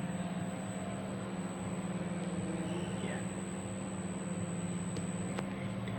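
Steady hum of a machine tool, most likely a CNC machine standing powered with its motors and drives running, with a thin high whine over it. A single sharp click comes about five and a half seconds in.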